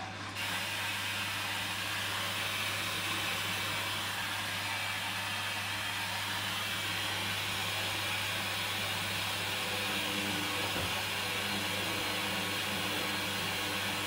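Hoover Dynamic Rapid 14 front-loading washing machine's drum motor starting abruptly and running steadily, with a low hum and a hiss of water and laundry in the turning drum. Faint steady tones join about ten seconds in as the drum picks up speed.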